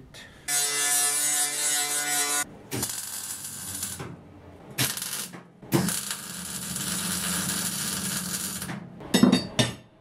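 Arc welding a steel fence post onto a frame: the arc crackles in four runs, short tack welds and then a longer bead of about three seconds. A few quick knocks near the end.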